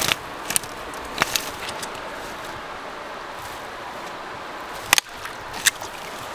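Sharp snaps and crackles of a tangle of old fishing line and dry twigs being tugged off a fallen branch: a few in the first second and a half, then the loudest snap near five seconds and one more just after, over a steady background rush.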